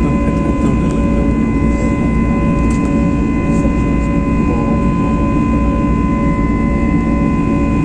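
Jet aeroplane engines running with a loud, steady drone and a constant high whine over it, with no change in pitch or level.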